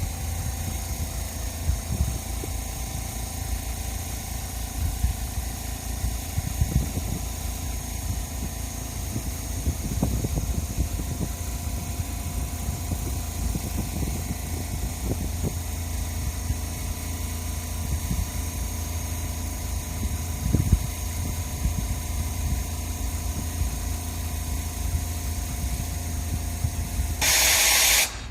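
EF510 electric locomotive's auxiliary machinery running steadily, a low rumble with a steady whine of several tones over it. About a second before the end, a loud hiss-like burst that then cuts off.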